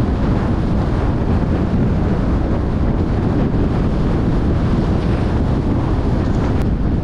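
Steady wind rushing over the microphone, with the low rumble of a car driving along the road.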